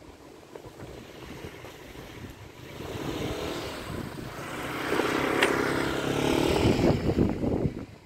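Engine of a passing vehicle, growing louder over several seconds and then cutting off suddenly, with wind buffeting the microphone at the start.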